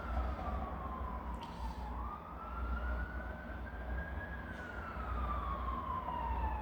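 Emergency vehicle siren in a slow wail, its pitch falling, rising and falling again over roughly two seconds each way, over a low rumble.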